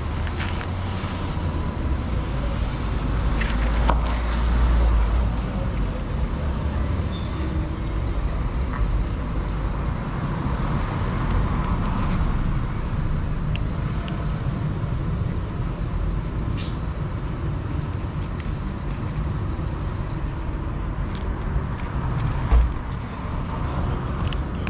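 Steady low rumble of road traffic, heaviest in the first few seconds as a vehicle goes by, with a dull thump near the end and a few faint clicks.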